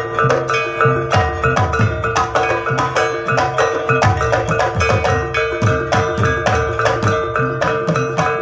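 Jaranan dance accompaniment: a Javanese gamelan-style percussion ensemble, with drums beating a fast, steady rhythm over ringing tuned metal gong-chimes and a held tone.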